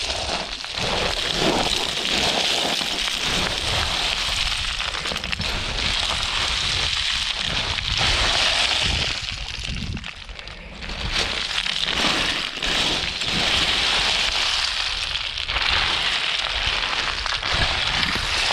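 Footsteps crunching and sliding over loose shale scree, stones clattering underfoot, with wind rumbling on the microphone; it eases briefly about ten seconds in.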